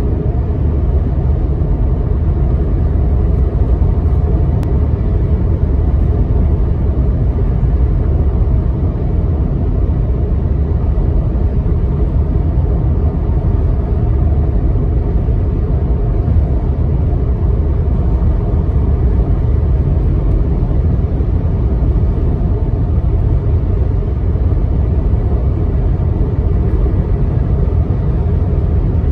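Steady low rumble of a car driving along a highway, heard from inside the cabin: tyre and engine noise with no distinct passing vehicles.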